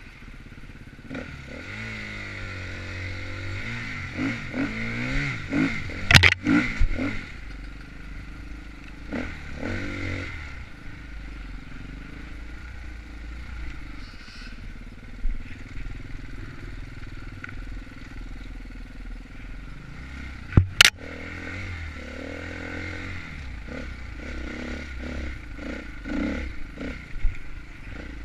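Enduro dirt bike engine revving up and down as it is ridden over rough trail, with rattling and clatter from the bike. Two sharp knocks, about six seconds in and again about twenty-one seconds in, are the loudest sounds.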